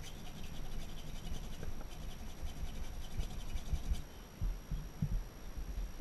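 Faint, rapid scratching of old sealant being picked off the mating edge of an aluminium engine crankcase half, with dull low knocks as the case is handled on a wooden bench, a few louder ones in the second half.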